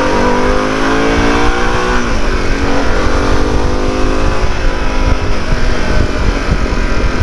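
Harley-Davidson Pan America 1250's Revolution Max V-twin engine accelerating hard. Its pitch climbs, drops sharply at a gear change about two seconds in, climbs again and then holds steady. Heavy wind rush runs underneath.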